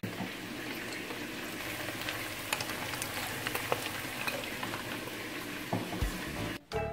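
Meat frying in hot oil in a pan: a steady sizzling hiss with scattered small pops and crackles, cutting off abruptly near the end.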